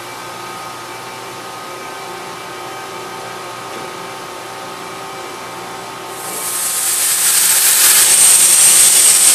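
Mori Seiki NT3200 DCG multitasking CNC turning-milling center running with a steady hum and several steady tones. About six seconds in, a loud hiss from the machine rises over a second and then holds.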